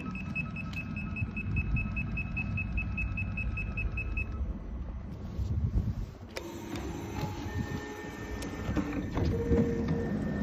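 A commuter train's door panel beeps rapidly and evenly, about six beeps a second, over the low rumble of the train; the beeping stops about four seconds in. About six seconds in there is a sharp clunk, then a steady high tone, and near the end the electric sliding doors begin to open.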